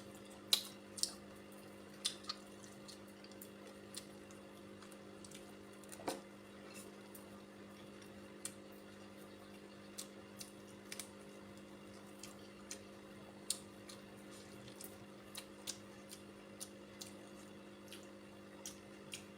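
Faint eating sounds: scattered short, wet clicks of chewing and mouth noises, a few seconds apart, over a steady low electrical hum.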